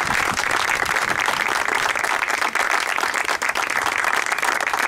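A small group of people applauding, with dense, steady clapping.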